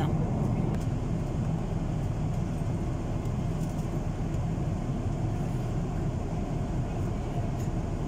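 Steady low rumble of jet airliner cabin noise in flight: engines and rushing air heard inside the passenger cabin.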